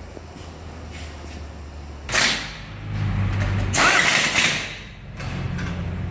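An engine running with a low steady drone, broken three times by loud bursts of rushing, hissing noise.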